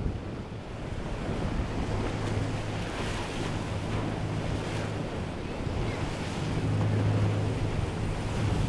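Motor yacht passing at speed: a low engine drone that swells as it goes by, over the rushing wash of its wake and spray, with wind buffeting the microphone.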